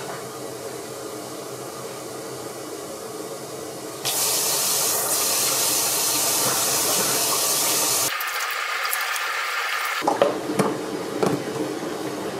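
Tap water running into a bathroom washbasin, the flow turning louder and fuller about four seconds in, followed by a few splashes and knocks near the end.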